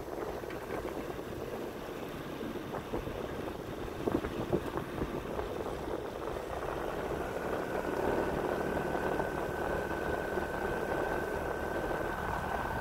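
Fishing boat's motor idling with a steady drone. A few knocks come about four seconds in, and a thin steady whine joins about seven seconds in.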